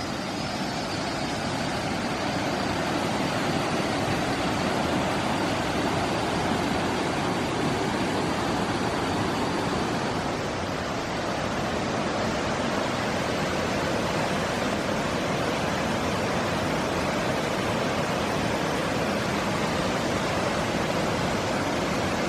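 Steady rush of a waterfall in full flow, swollen with rainy-season water.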